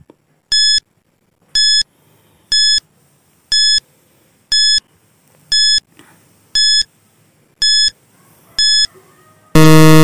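Countdown timer sound effect: short, high electronic beeps about once a second, nine in all. Near the end a longer, louder, lower buzzer sounds as the count reaches zero.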